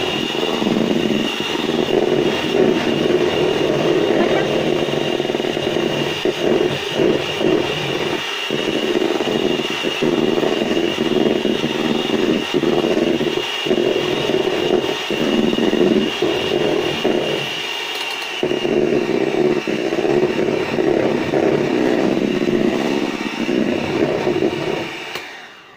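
Electric hand mixer running steadily, its twin beaters whipping egg whites in a plastic bowl, with a steady motor hum and a high whine. This is the meringue being beaten to a fluffy foam. The sound shifts slightly about 18 seconds in and the mixer stops just before the end.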